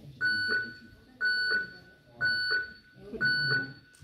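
Electronic quiz countdown timer beeping: four identical short high beeps, one a second, counting down the last seconds of a team's thinking time.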